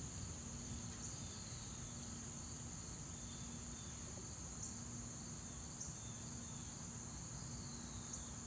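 A chorus of insects in the trees, making a steady high-pitched drone, with a few short higher chirps on top.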